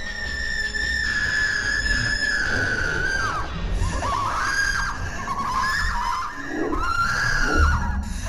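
High-pitched screaming: one long held shriek that then breaks into several overlapping cries falling in pitch, over a low rumbling drone.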